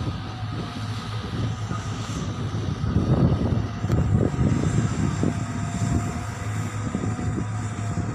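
A steady low engine drone with an uneven, gusty rumble over it.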